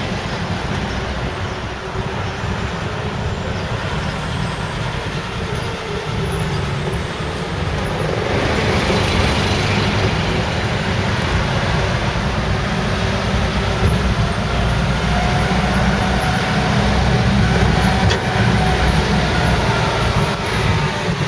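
Engine and road noise of a songthaew pickup truck, heard from its open back while it drives along a street. It is a steady rumble that grows louder and hissier about eight seconds in.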